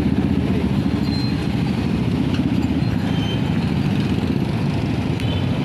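Motor vehicle engine running steadily, a low pulsing hum.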